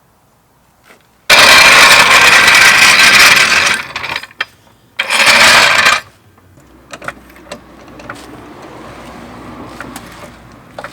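Power impact wrench hammering, in two bursts: a long one of about two and a half seconds, then after a short pause a shorter one of about a second, typical of lug nuts being broken loose to pull a wheel. Light metallic clinks and knocks follow.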